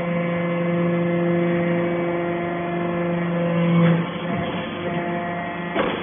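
Hydraulic chip briquetting press running: its pump motor gives a steady hum that drops away about four seconds in, followed by a short clunk near the end.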